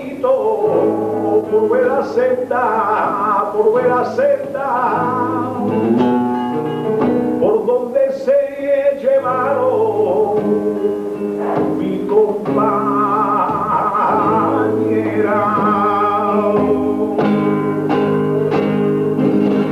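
Male flamenco cantaor singing a jondo cante in long, melismatic held notes with a wavering vibrato, accompanied by a flamenco guitar's plucked chords.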